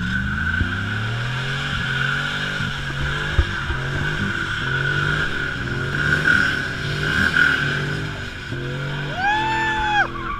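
Chevy V8 pickup doing a burnout: the engine revs up and drops back again and again, while the spinning rear tyres squeal in a steady screech. Near the end a loud high-pitched call, a shout or horn, holds for about a second.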